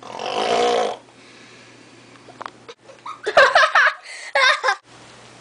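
A girl's voice making sounds without words: a breathy, noisy sound lasting about a second at the start, then two short, wavering voiced bursts a little past halfway. A faint steady hum runs underneath.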